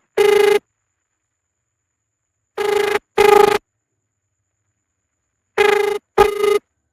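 Telephone ringing tone in a double-ring pattern: two short steady rings close together, repeating about every three seconds, with the first pair cut in at the start.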